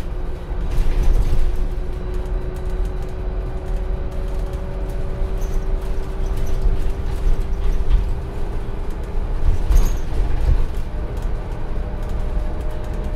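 Scania N250UD double-decker bus on the move, heard from inside the lower deck: a steady low rumble from its five-cylinder diesel, with a faint drivetrain whine that slowly rises in pitch as the bus gathers speed. About ten seconds in there is a brief clatter, after which a higher, steady whine carries on.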